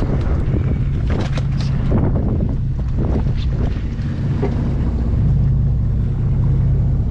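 A sportfishing boat's diesel engine running with a steady low hum, with wind buffeting the microphone. A few sharp knocks sound in the first two seconds and again about halfway through.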